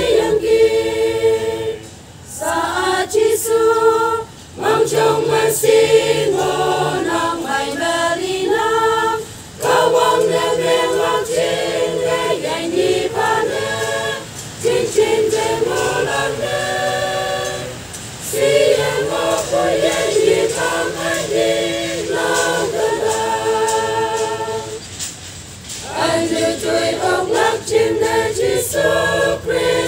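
Church choir of women and men singing a Christian hymn about Jesus Christ a cappella, the phrases separated by short breaks for breath.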